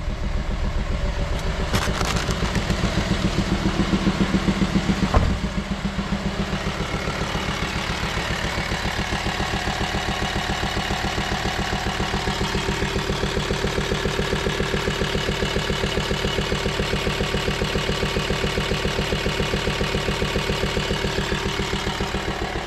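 Volkswagen Transporter T5's 2.5 TDI five-cylinder diesel idling with an even pulsing beat. It is a little louder for the first few seconds, then a sharp knock about five seconds in, after which it settles slightly quieter. The engine makes an abnormal trawler-like noise, which the owner thinks is a valve sealing or compression leak.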